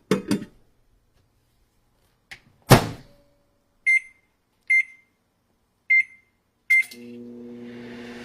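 Microwave oven: a couple of clicks, then the door shut with a loud thump, followed by four short keypad beeps at the same pitch. Near the end the oven starts up and runs with a steady hum.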